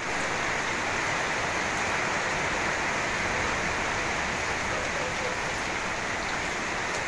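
Heavy rain pouring down steadily, an even hiss with no break.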